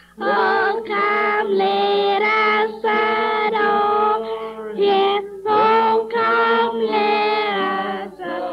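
A child singing a song solo and unaccompanied, holding each note for about half a second to a second with short breaks between phrases, on a dull, muffled home recording from 1950.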